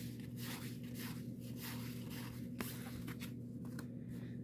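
Cardboard baseball cards being flipped through by hand, each card sliding off the stack with a soft papery swish a few times a second, over a faint steady hum.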